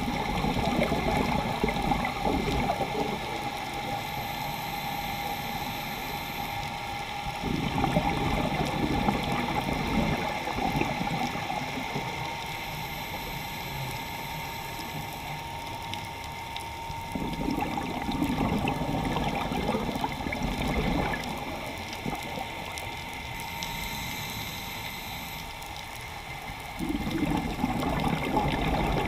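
Scuba diver breathing out through a regulator underwater: four bursts of gurgling exhaust bubbles, about every nine to ten seconds, with quieter stretches between breaths.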